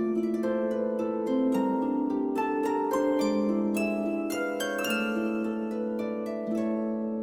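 Gentle harp music: plucked notes and chords ringing one after another.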